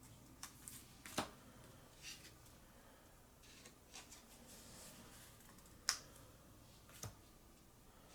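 Trading cards being handled on a table: a few sharp clicks and taps spread about a second or two apart, the loudest about six seconds in.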